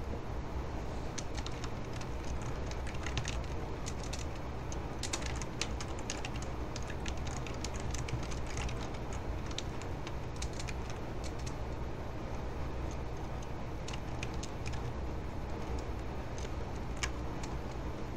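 Scattered light clicks of a computer keyboard, in short irregular runs, over a steady low hum.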